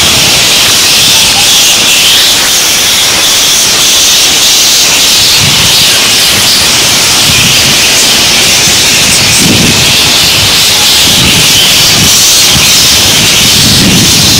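Loud, steady high-pitched chorus of cicadas in the tree canopy, with a few soft low thuds.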